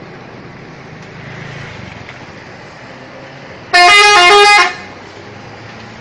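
Bus telolet horn, a multi-tone musical air horn, plays a quick tune of stepping notes for about a second, loud over steady road traffic noise.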